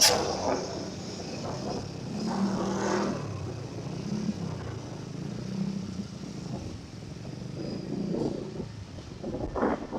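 A motor vehicle engine running and passing, with a sharp click at the very start.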